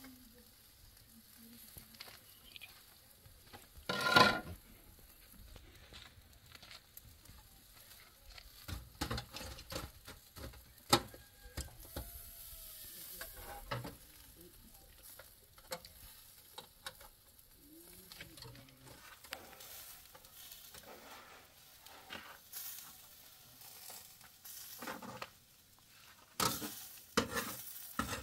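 Chicken and meat kebabs sizzling over charcoal on a metal grill, with sharp clinks of metal skewers and tongs as they are turned. A louder clank about four seconds in and a run of clinks near the end.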